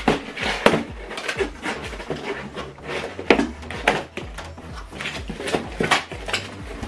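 Cardboard shipping box being opened: a cutter slitting the packing tape, then the stiff cardboard flaps being folded back and pulled open, with a run of sharp knocks, scrapes and creases.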